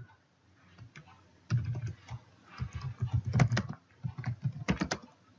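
Typing on a computer keyboard: a quick run of keystrokes starting about a second and a half in, a brief pause, then a few more strokes.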